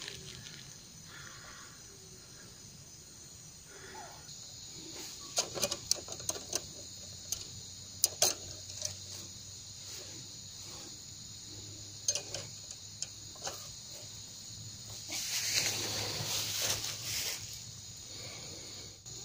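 Insects trilling steadily in the background, with scattered sharp clicks and knocks and a louder rustling stretch about three-quarters of the way through.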